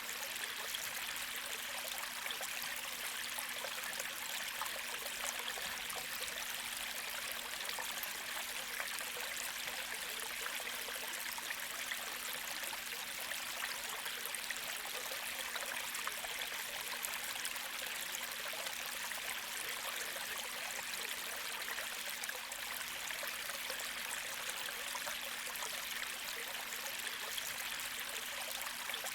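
Gentle creek flowing: a steady, even rush of moving water that does not change throughout.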